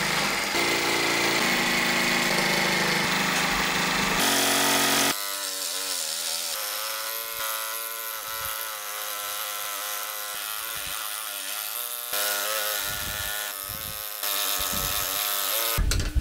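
Homemade wooden scroll saw running, its small motor and crank driving the blade up and down as it cuts a pine board. The sound is noisy for the first few seconds, then turns into a pitched hum that wavers as the cut goes on.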